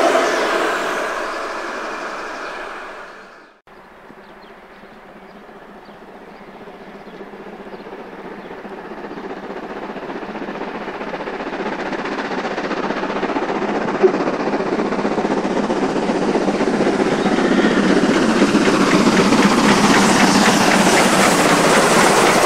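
A steam train fading as it draws away, cut off abruptly a few seconds in. Then the 2-10-0 class 50 steam locomotive 50 2988 and its coaches approach, growing steadily louder until they pass close by near the end.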